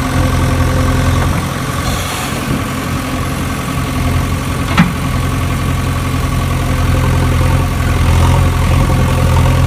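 Engine idling with a steady low drone, and one sharp click about five seconds in.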